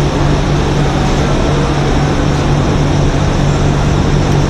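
Steady, loud mechanical drone with a constant low hum, like running ventilation or shop machinery; no distinct tool or spring clicks stand out.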